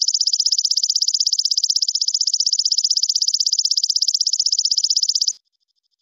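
Belalang kecek insect calling: a loud, shrill, rapid run of even pulses, roughly a dozen a second, that cuts off suddenly about five seconds in.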